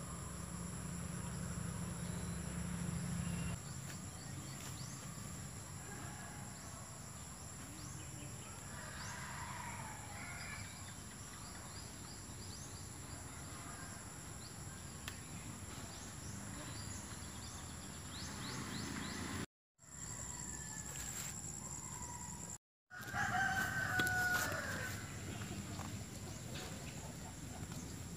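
A rooster crowing twice, the first faint, the second and loudest a bit past two-thirds of the way in, over a steady background hum.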